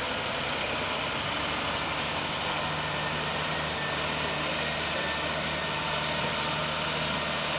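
Diesel engine of a Tata tractor-trailer truck running steadily at low speed as the truck moves slowly through a practice course, with a low hum beneath a steady wash of noise.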